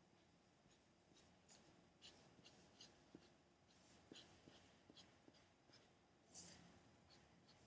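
Faint, quick short strokes of a drawing tool on paper, about two a second, as dashed lines are drawn one after another; one stroke about six and a half seconds in is a little louder.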